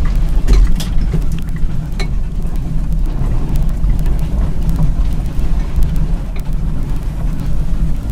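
Car driving over a grassy field track, heard from inside the cabin: a steady low drone from the engine and body, with scattered clicks and knocks.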